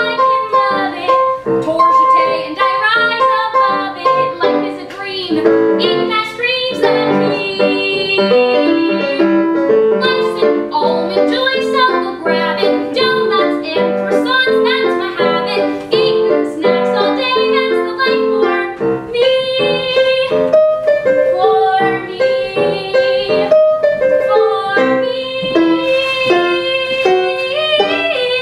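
Show tune: a young woman singing with live piano accompaniment.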